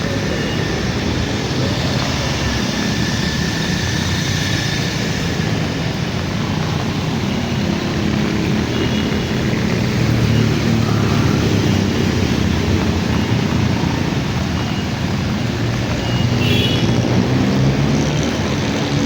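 City street traffic: vehicle engines running and passing, with a steady wash of noise.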